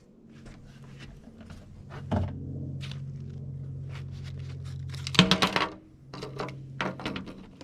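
Rustling, crinkling and light knocks as the screen repair kit's new materials are handled, with a loud crinkle about five seconds in, over a steady low hum.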